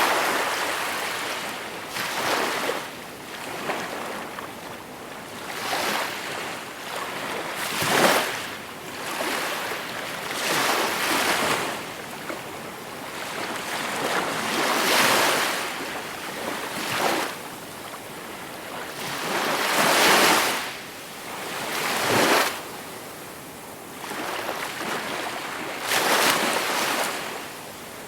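Calm sea waves breaking and washing ashore, one surge of hissing surf after another every two to three seconds, some louder than others.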